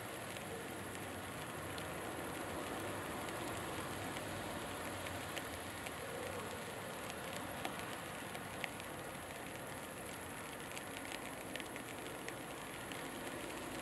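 Steady outdoor background noise: an even hiss over a low hum, with scattered faint ticks, more of them in the second half.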